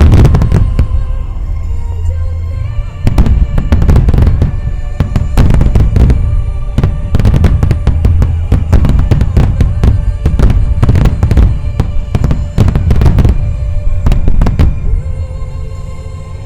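Wide starmine fireworks barrage: dense, rapid bursts of shells with deep booms and crackle, one after another. Music plays underneath from loudspeakers.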